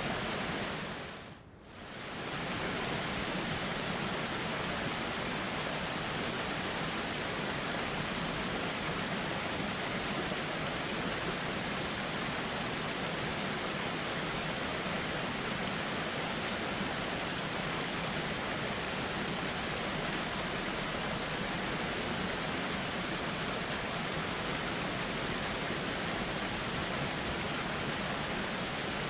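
Steady rushing of flowing river water, an even hiss with no distinct events. The sound briefly fades out and comes back about a second and a half in.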